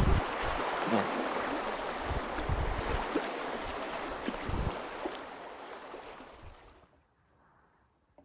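Fast, shallow river water rushing and splashing around a canoe being paddled through a riffle, with scattered low thumps. The sound fades out about seven seconds in, leaving near silence.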